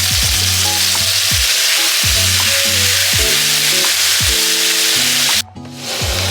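Food sizzling in a hot frying pan, a loud steady hiss that cuts off abruptly about five seconds in and comes back more faintly a moment later. Background music with a deep, regular bass beat plays underneath.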